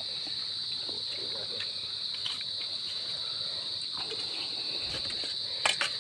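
Steady high-pitched insect drone, with a few faint clicks near the end.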